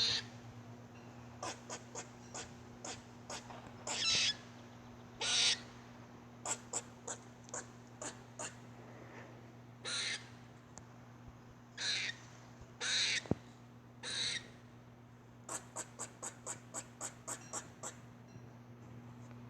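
Squirrel calling: runs of quick short chips, about three or four a second, broken by longer hoarse calls of about half a second each.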